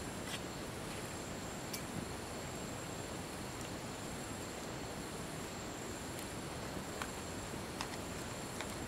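Steady high-pitched chirring of night insects over a background hiss, with a few faint sharp clicks scattered through.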